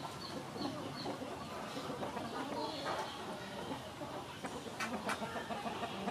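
Birds calling, with a few sharp clicks and taps from steamed chicken eggs being peeled and handled.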